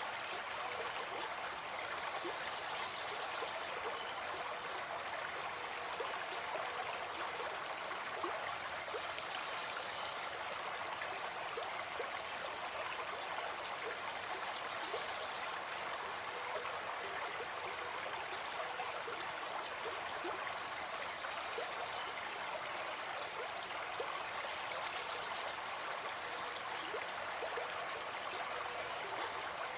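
Small forest stream running and babbling over stones, steady with light gurgles and splashes.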